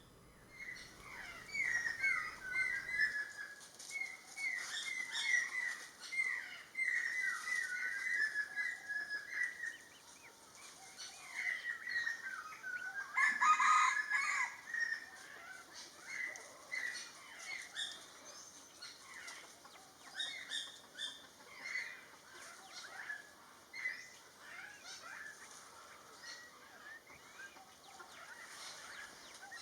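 Background birdsong: many short, quick chirps and call notes, most of them falling in pitch, from wild birds. About thirteen seconds in, one louder and longer call stands out above the rest.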